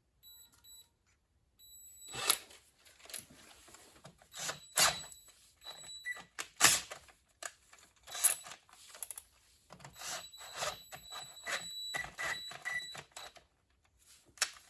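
Electric drill boring out a stripped bolt hole in cast iron for a helicoil, run in starts and stops: a high whine comes and goes, with irregular sharp knocks as the bit catches in the hard cast iron.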